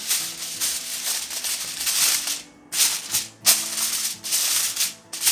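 Aluminium foil crinkling and crackling as it is pressed down and crimped around the rim of a baking dish, in repeated bursts with a short pause about halfway through.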